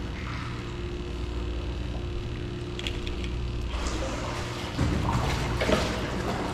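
Water sloshing and gurgling over a steady low hum, growing louder about five seconds in.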